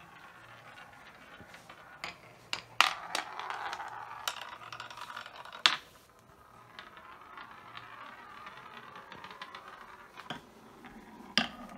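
A marble rolling through a homemade marble run of wooden and plastic tracks: a rolling hiss broken by sharp clicks and knocks as it drops from one section to the next, the loudest about three and six seconds in.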